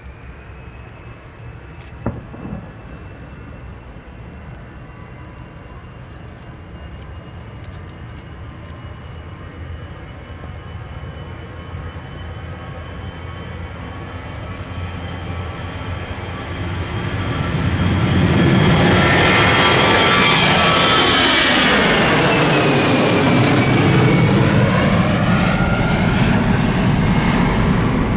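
Airbus A319 jet engines at takeoff thrust, growing steadily louder as the airliner comes closer. About two-thirds of the way in it passes, and its high whine falls in pitch over a loud rumble. A single sharp click about two seconds in.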